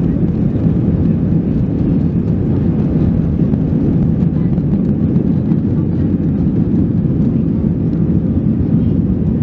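Airbus A320-200 jet engines at takeoff power during the takeoff roll, heard from inside the passenger cabin as a steady, loud, low-pitched noise.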